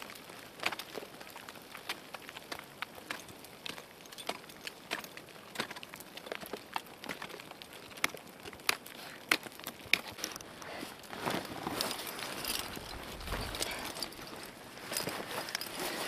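Close crunching and clicking of snow, ice and climbing gear: many irregular sharp clicks, turning about ten seconds in into a denser scraping hiss with a brief low buffet.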